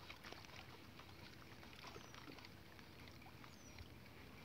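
Near silence: faint water lapping against a small boat's hull, with scattered small ticks and two faint, short, high falling chirps about two and three and a half seconds in.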